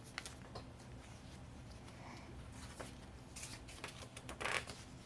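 Soft rustling and light taps of paper pages being handled and turned in a handmade paper journal, with two brief louder rustles near the end.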